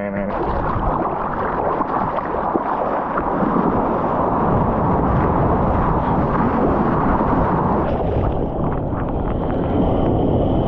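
Surf and churning seawater rushing around a mouth-held GoPro in the waves, with wind buffeting the microphone. About eight seconds in the sound turns more muffled.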